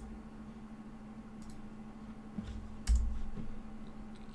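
A few quiet clicks from a computer mouse and keyboard, the loudest about three seconds in with a dull knock, over a steady low hum.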